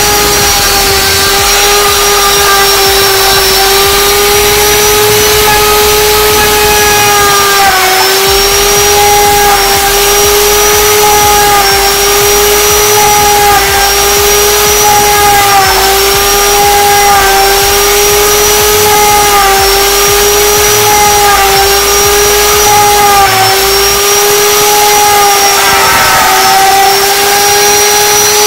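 Electric plunge router running flat out with a straight bit cutting a mortise slot in wood: a loud, steady high whine whose pitch sags briefly every few seconds as the bit bites deeper under load.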